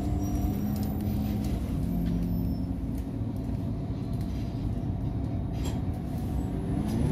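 City bus engine running, heard from inside the cabin as a steady low drone with a few faint rattles; its pitch dips slightly about two seconds in.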